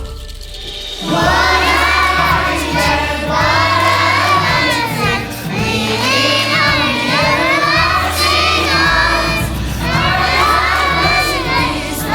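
A group of children singing and shouting along to a music backing track with a steady bass line. The voices come in loudly about a second in.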